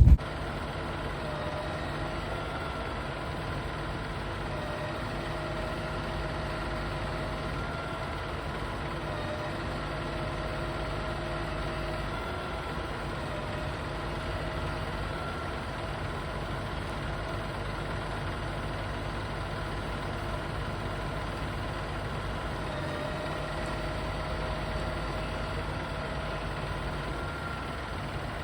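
Truck engine running steadily, with a low rumble and a faint, slowly wavering whine above it.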